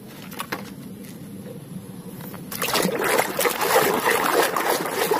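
A few light plastic knocks as a toy is set down in a plastic basket. About halfway through, water starts sloshing and splashing as a hand scrubs a toy in a basin.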